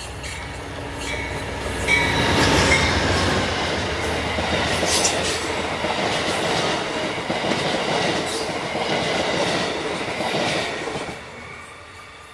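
A passenger train passing close by, its wheels clicking over rail joints with some squeal. The noise rises over the first couple of seconds, holds loud for about nine seconds, then drops away quickly near the end.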